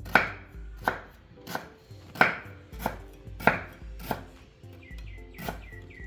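Steady chopping on a cutting board, sharp strokes about every two-thirds of a second.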